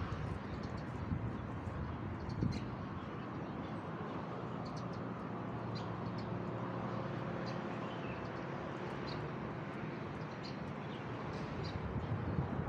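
Steady hum of road traffic, with an engine note standing out in the middle, while birds give short, high chirps now and then.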